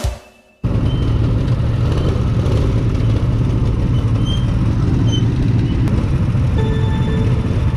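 Go-kart engine running steadily, an even low drone.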